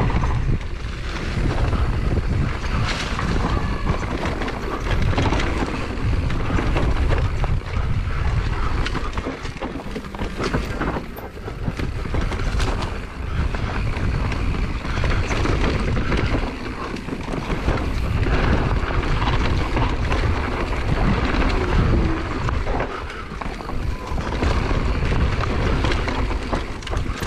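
Wind buffeting a GoPro's microphone as an enduro mountain bike descends a rough, dusty trail: a heavy rumble of tyres over dirt and rocks, with frequent clicks and knocks from the bike rattling over the bumps.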